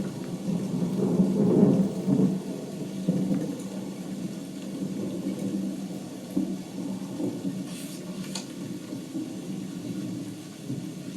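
Thunderstorm sound effect: thunder rumbling on with rain, the rumble swelling and fading, with a couple of brief sharper crackles about eight seconds in.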